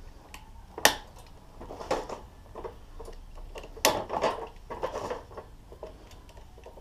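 Loose bike parts (the charger, mirrors and pedals) being handled and lifted out of a wire basket: a few sharp knocks and clinks, the loudest about a second in and near four seconds, with rattling and rustling in between.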